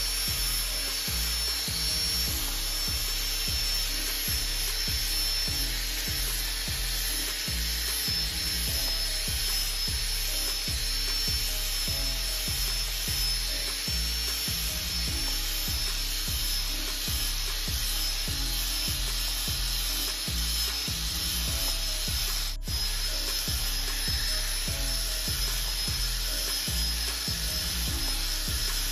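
Background music with a steady beat over the continuous high-pitched whine of a small power tool running under load.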